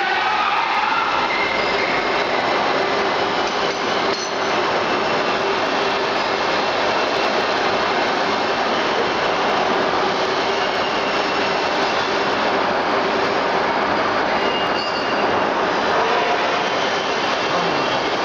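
Rice milling machine running steadily: a loud, even rushing noise with a faint steady hum underneath, level throughout apart from a brief dip about four seconds in.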